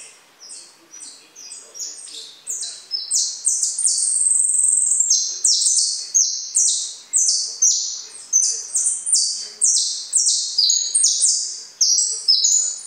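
Caged songbird practising its song: a fast, unbroken string of short, sharp, high-pitched notes that swells in loudness about two seconds in.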